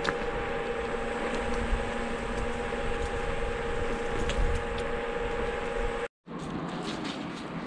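Xiaomi M365 electric scooter on 8.5-inch tires riding at about 22 km/h: a steady rush of wind and tire noise with a steady whine. About six seconds in the sound cuts out for a moment, then carries on a little quieter without the whine.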